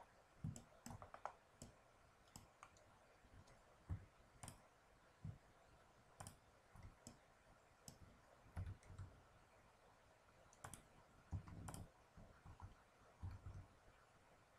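Faint computer mouse clicks and keyboard key presses, irregularly spaced about once a second.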